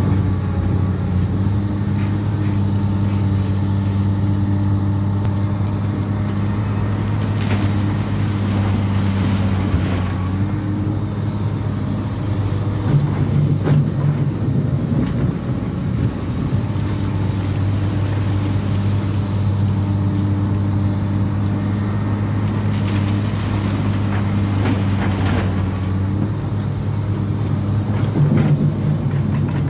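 Excavator's diesel engine running steadily under the loading work, rising in pitch briefly about halfway through and again near the end as it takes on load. A few scattered clanks are heard along with it.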